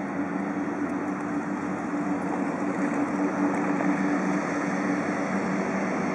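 Piaggio P180 Avanti's twin turboprop engines and pusher propellers running steadily at taxi power: a broad engine noise with two steady low propeller tones, growing slightly louder in the second half.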